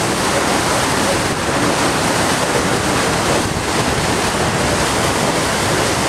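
Steady rushing roar of Niagara's American Falls and the churning river below them, with wind buffeting the microphone.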